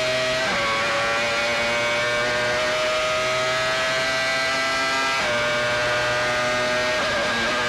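1995 Benetton-Renault Formula One car's V10 engine at high revs, heard onboard. The pitch climbs slowly between two quick upshifts, about half a second in and about five seconds in, then wavers briefly near the end.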